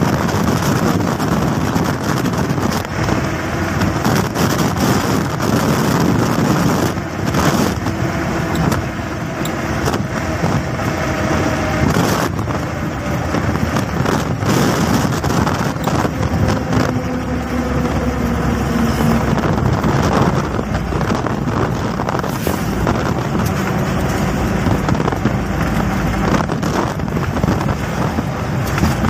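A car driving steadily along a highway, heard from inside the cab: a constant rush of engine, tyre and wind noise, with occasional short thumps of wind buffeting the microphone.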